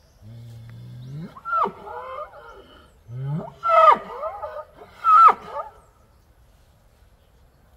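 A bull bellowing twice, each call starting as a low moan that rises and breaks into a high-pitched, squealing roar; the second call squeals twice. It is the bellowing of bulls in heat during mating season.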